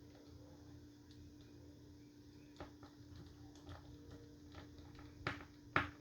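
Small scattered clicks and taps of handling Nintendo Switch Joy-Con controller plastic parts during a repair, with two louder clicks near the end, over a faint steady hum.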